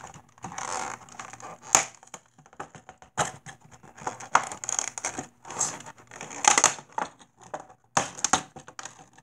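Clear plastic blister packaging crackling and crinkling in irregular bursts, with sharp clicks, as it is bent and pried open by hand.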